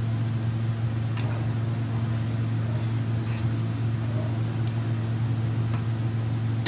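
A steady low machine hum like a motor or fan, with a few faint light knocks of a ladle stirring water in a pan.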